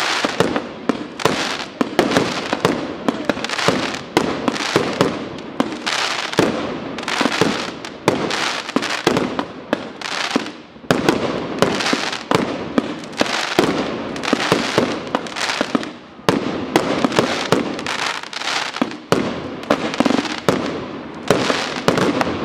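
Aerial fireworks display: a dense, unbroken barrage of sharp bangs from shells bursting overhead, several a second.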